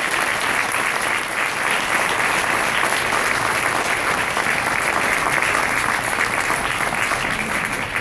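Audience applauding steadily, a dense run of many hands clapping.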